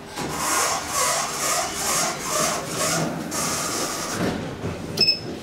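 A rhythmic scraping, rustling noise at about two strokes a second, then about five seconds in a sharp click with a short high beep as the elevator car's floor button is pressed and accepts the call.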